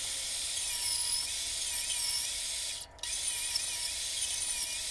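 Bandsaw running and cutting a small maple burl block: a steady hiss that drops out briefly about three seconds in.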